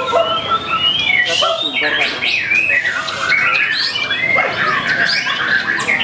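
Caged songbirds singing at once, a white-rumped shama among them: a dense, unbroken chorus of whistles, quick rising and falling glides and trills.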